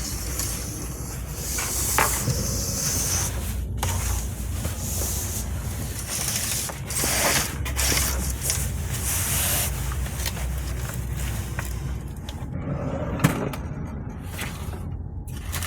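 A truck's engine running with a steady low rumble under a changing hiss, broken by a few abrupt cuts.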